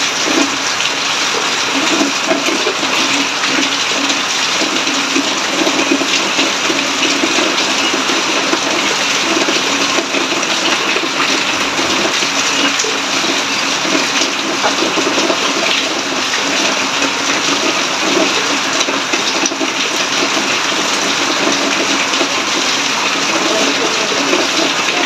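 Steady rush of heavy rain, with water pouring off the roof edge and splashing onto the concrete.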